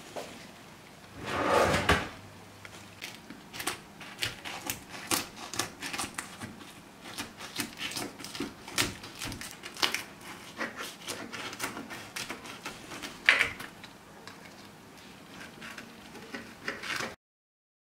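Knife cutting through the crisp baked phyllo (yufka) crust of a börek in a metal baking tray: a fast, irregular run of crackles and crunches, with a louder rasp about a second and a half in and another at about thirteen seconds.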